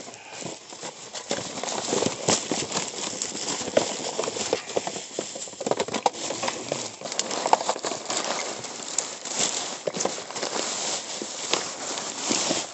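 Black plastic garbage bags crinkling and rustling as a gloved hand rummages through them, with irregular clicks and knocks throughout.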